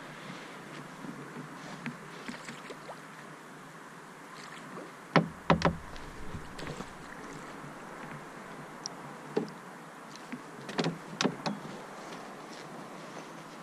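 Canoe being paddled on calm water: a steady wash of water from the paddle strokes, with sharp knocks on the canoe's hull, two loud ones about five seconds in and a few more around eleven seconds.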